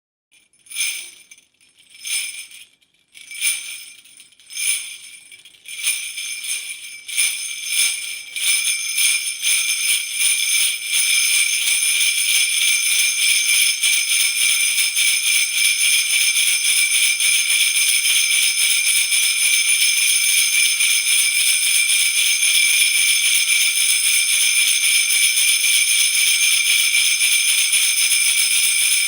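Sleigh bells being shaken: at first separate jingles about a second apart, coming closer and closer together until, around ten seconds in, they run into a steady continuous jingling.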